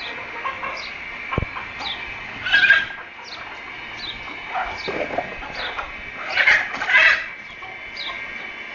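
Chickens calling, with two loud squawking outbursts, one about two and a half seconds in and one longer one near seven seconds. Short, high, falling chirps repeat about every half second throughout.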